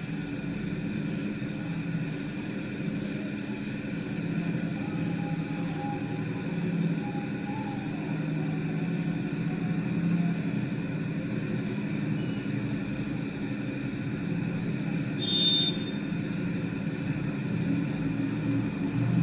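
Steady background hum and noise, with a brief high-pitched tone about fifteen seconds in.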